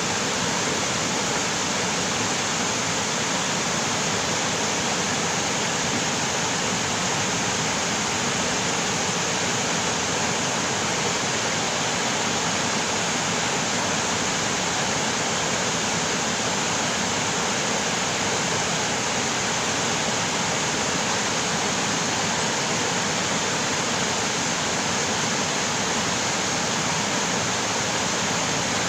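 Creek water rushing, a steady, unbroken hiss.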